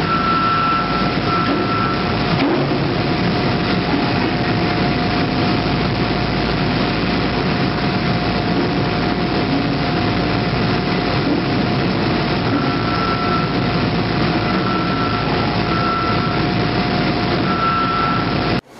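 Heavy forging machinery running: a forging manipulator and hydraulic forging press making a loud, steady din with a constant whine. A warning beeper sounds in short repeated beeps in the first couple of seconds and again through the last six seconds.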